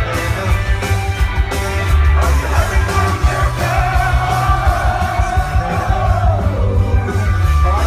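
Live rock band playing loudly, with a singer's voice wavering over driving drums and guitars, recorded on a phone.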